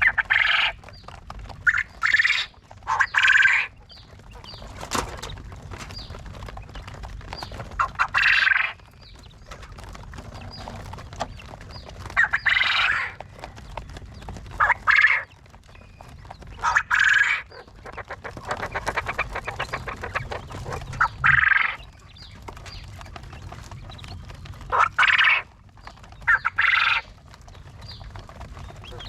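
Quails calling: about ten short, loud, noisy calls a few seconds apart, with a stretch of rapid chattering past the middle, over a low steady background.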